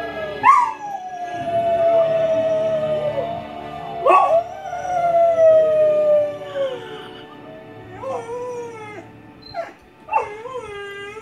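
English Mastiff puppy howling: two long howls that slide down in pitch, starting about half a second and four seconds in, then a few shorter rising-and-falling howls near the end, over film music.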